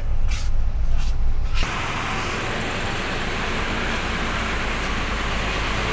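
Low, steady rumble of a Mercedes-Benz bus's idling engine inside the cabin. About one and a half seconds in it cuts abruptly to a steady hiss and rumble from beside the running bus at the kerb.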